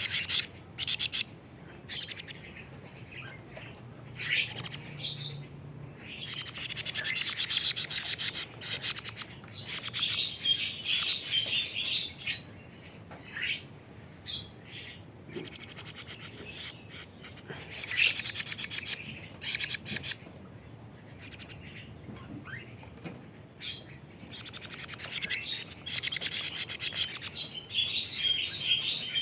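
Young kedasih cuckoo, 41 days old, calling in bursts of fast, high chirps every few seconds, each burst lasting a second or two.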